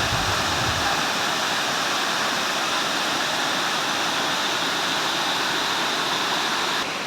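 Waterfall: a steady, heavy rush of falling water, dropping slightly in level near the end.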